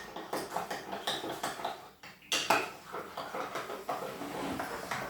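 A spoon stirring baking soda and water in a cup, clinking and scraping against the sides in quick, uneven strokes, with one louder knock about two seconds in.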